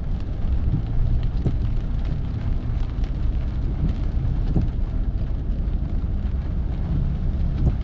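Steady low rumble of a car driving on a wet road, heard from inside the cabin, with the hiss of rain mixed in.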